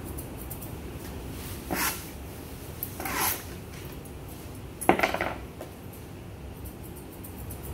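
Three short, scratchy sounds of grooming tools working a Pomeranian's thick coat, about a second and a half apart, the last one the loudest with a sharp start.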